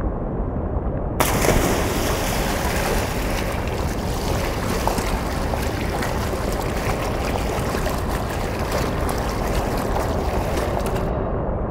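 Loud, steady rushing noise with a deep rumble underneath. About a second in, a hiss covering the whole range starts suddenly, and it cuts off abruptly near the end.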